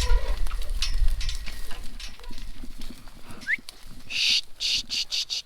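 Cattle moving and shuffling in a pen, with a low engine rumble that fades in the first couple of seconds. A short rising whistle comes about three and a half seconds in, followed by a quick run of hissing rattles near the end.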